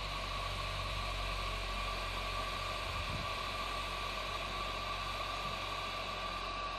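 Hot air rework station blowing steadily: an even hiss with a thin steady whine in it, as solder paste is reflowed to attach a power button to a tablet's flex strip.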